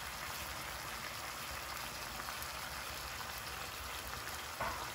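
Chicken legs and thighs sizzling in butter and their own juices in a frying pan: a steady, even crackling hiss. A short louder knock comes near the end.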